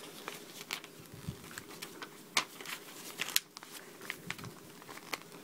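A paper instruction booklet being handled and its page turned, rustling and crinkling, with scattered small clicks and two sharper clicks near the middle.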